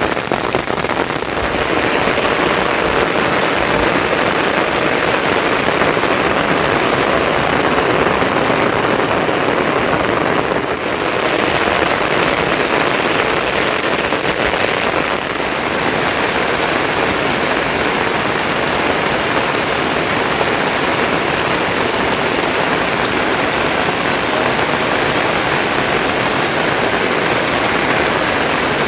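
Heavy rain falling steadily, a loud even hiss.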